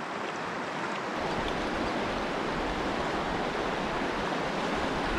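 Shallow, clear stream running fast over rocks in a riffle: a steady, even rush of water.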